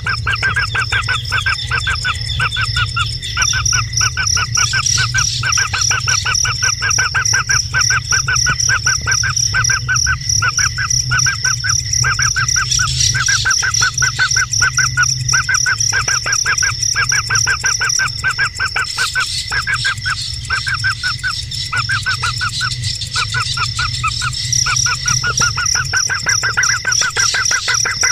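A bird calling in a fast, continuous string of short repeated notes, broken by brief pauses, with a steady high-pitched whine running behind it.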